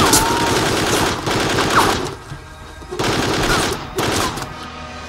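Automatic gunfire in two long rapid bursts, the second starting about three seconds in after a short lull.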